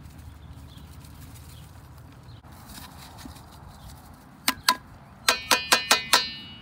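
Seven sharp knocks that ring briefly, metal on metal: two, then five quick ones near the end, about five a second. They fit a seasoning container being tapped against the rim of a metal boil pot to knock out the last of the Creole seasoning.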